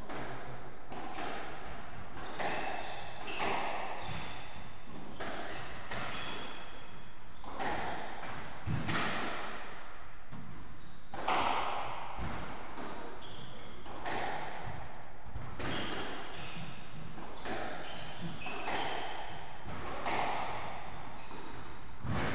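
Squash rally: the ball is struck by racquets and smacks off the court walls in quick, irregular succession, each hit echoing in the enclosed court, with shoes squeaking on the wooden floor.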